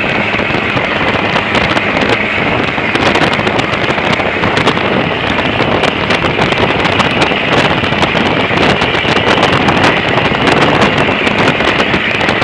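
An engine running loud and even, mixed with a steady rush of noise and crackle.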